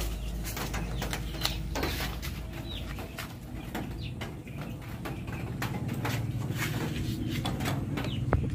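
Light clicks and rattles of hands handling the plastic housing, wiring and connectors behind a motorcycle's handlebars while a flasher relay and hazard switch are fitted, with a sharper click near the end.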